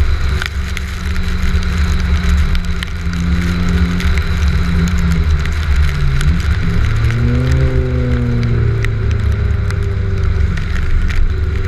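Honda S2000's engine running and revving during a wet drifting run, its pitch rising and falling with the throttle over a heavy low rumble and a steady hiss.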